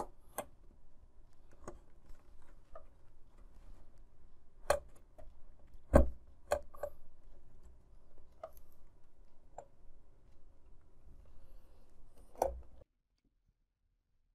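Scattered light clicks and knocks of plastic and metal as a Lenovo IdeaPad G50-70 laptop's display hinges are handled and fitted into the base; the loudest knock comes about six seconds in. The sound cuts off to silence near the end.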